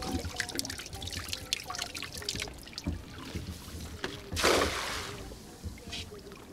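A thrown cast net lands on the water about four and a half seconds in with a brief splash, the loudest sound, as its weighted rim and mesh hit the surface. Before that, water drips and trickles off the wet net with small clicks.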